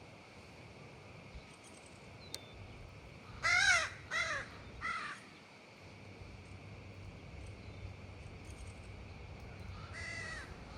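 A bird calling outdoors: three loud calls in quick succession, then a fainter fourth call near the end, over a steady low background hum.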